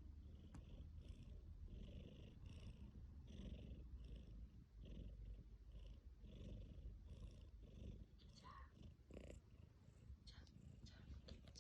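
Tabby cat purring, faint and steady, with a soft hiss repeating about twice a second. Several faint clicks near the end.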